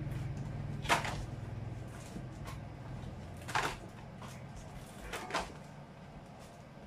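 Items being handled and shifted inside a cardboard shipping box: several short rustles and scrapes, the strongest about a second in and again around three and a half and five seconds in, over a low hum.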